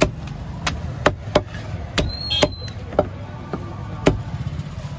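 Heavy fish knife chopping through a seer fish's head into a wooden block: about eight sharp, irregular chops, the loudest at the start and about four seconds in, over a low steady hum.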